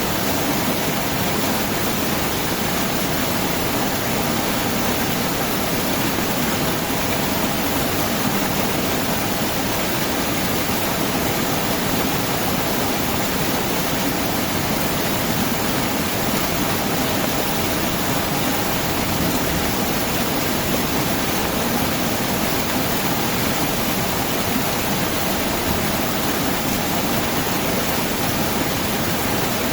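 Heavy rain falling steadily: a dense, even hiss with no thunder and no letup.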